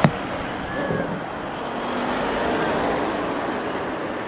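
Steady engine and road noise from cars moving off slowly, with a sharp knock right at the start.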